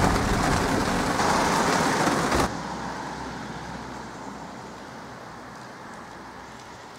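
Heavy rain on a velomobile's enclosed shell, heard from inside the cockpit as a loud, even hiss. About two and a half seconds in it cuts off suddenly to a much quieter hiss of rain on a wet street, which slowly fades.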